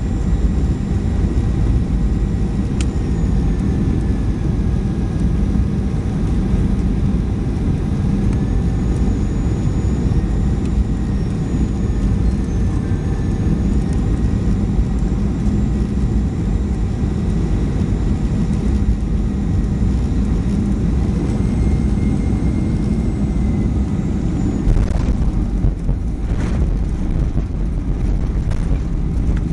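Jet airliner cabin noise on final approach: a steady rumble of engines and airflow with faint whining engine tones that drift slightly in pitch. Near the end a couple of knocks mark the main wheels touching down on the runway, and the sound changes as the aircraft rolls out.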